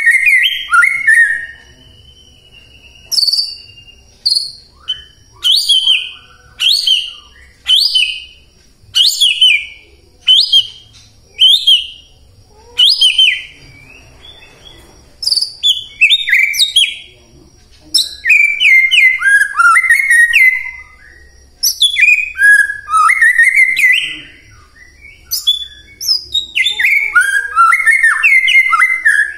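White-rumped shama (murai batu) in full song: loud, varied phrases of sweeping whistles and rapid notes. Short phrases come about once a second at first, then longer, run-together phrases in the second half.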